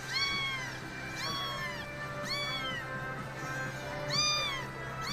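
Kitten meowing repeatedly, about once a second, each call a short high-pitched rise and fall.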